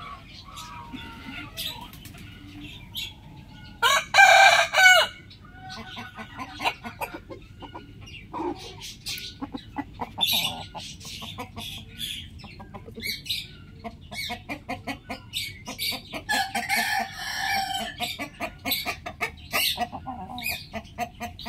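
Rooster crowing twice: a loud crow about four seconds in and a longer, softer one in the second half, with many short clucking calls in between.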